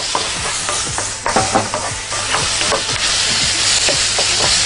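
Diced onions and minced garlic frying in oil in a pan, with a steady sizzle. A spatula stirs through them, scraping and knocking against the pan in short, irregular strokes.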